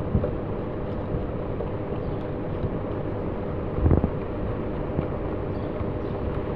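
Steady mechanical hum and noise, with one dull knock about four seconds in.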